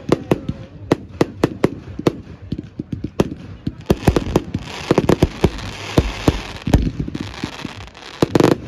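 Fireworks going off in quick, irregular succession, several sharp bangs a second. A dense hiss joins about halfway through.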